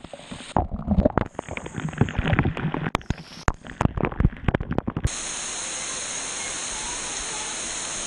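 Waterfall water pouring and splashing straight onto an action camera, a muffled jumble of gurgles and knocks. About five seconds in it cuts abruptly to the steady rush of falling water.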